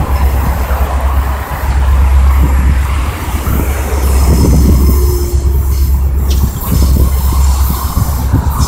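Cars passing close by on a road with a steady low rumble of wind on the microphone, over the sound of a diesel freight train approaching in the distance.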